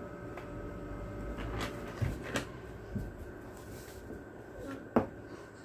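Sheets of exam paper being handled with a pencil in hand: scattered light taps and paper rustles, the sharpest tap about five seconds in, over a faint steady hum.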